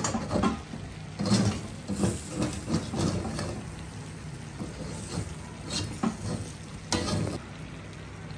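Metal fork and spatula scraping and knocking against a steel wok while adobo sizzles in it, over a steady frying hiss. The strokes come quickly at first, then only now and then.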